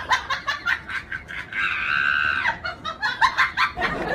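A young woman laughing in quick, rapid bursts, with a long high-pitched shriek held for about a second near the middle before the laughter resumes.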